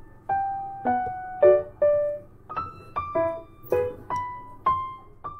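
Background piano music: a gentle melody of single struck notes, about two a second, each ringing out and fading.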